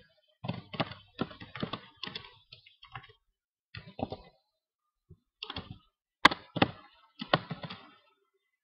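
Typing on a computer keyboard: clicks of keys coming in short irregular bursts, with brief pauses between them.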